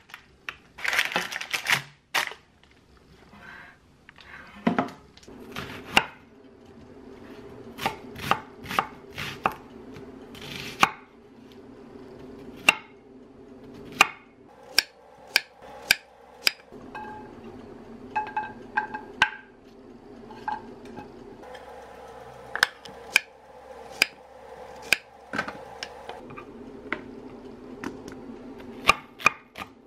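Knife chopping onion and zucchini on a wooden cutting board: sharp knocks of the blade on the board, now single, now in quick runs, over a steady low hum. Near the start, a brief clatter of an air-fryer basket being handled.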